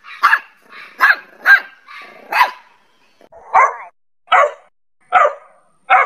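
Dog barking repeatedly, about eight short barks, closer together in the first half and more spaced out after.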